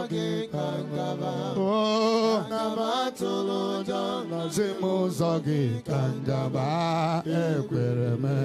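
A man chanting prayer into a handheld microphone in a sing-song voice, with long held notes that waver and glide up and down.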